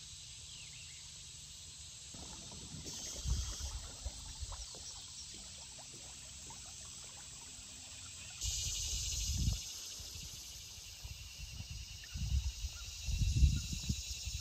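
Insects chirring steadily in the background, a high pulsing drone, with intermittent water trickling and low knocks and splashes from kayak paddling, a louder stretch of splashing about two-thirds of the way through.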